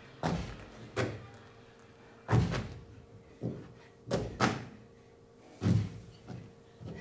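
A dancer's body and limbs thudding and slapping on the stage floor as she rolls and drops. There are about eight irregular thuds, two of them landing in quick pairs.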